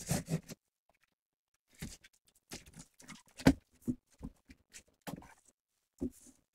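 A taped cardboard box being cut and pulled open: irregular short scrapes and knocks of a blade through packing tape and the cardboard flaps, the sharpest knock about three and a half seconds in.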